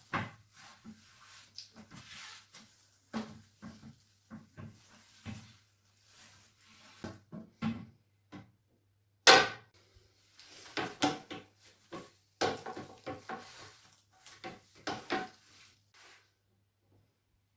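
Household objects being handled and set down in a small bathroom: an irregular run of knocks, clicks and clatters, with one louder knock about nine seconds in.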